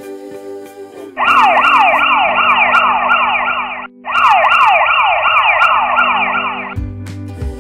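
Siren sound effect, a fast yelp of quickly repeating falling sweeps, about three a second, in two loud bursts of nearly three seconds each with a brief break between, over background music.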